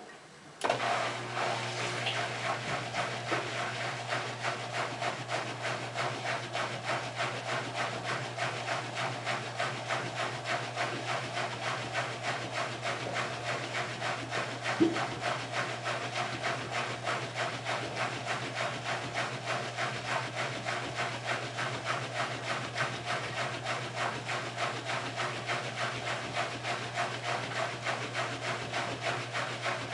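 Miele W3033 front-loading washing machine starting to drain and spin. After a click, a steady low hum and a rasping swish start together, the swish pulsing about three times a second as the drum turns. There is a single sharp knock about halfway.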